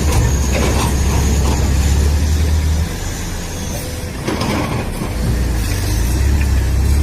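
A steady low machine hum with hissing over it, weaker for a second or so about three seconds in, and a few short knocks.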